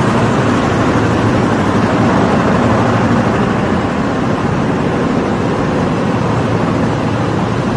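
Filter-cloth production machinery running: a loud, steady mechanical noise with a low hum under it.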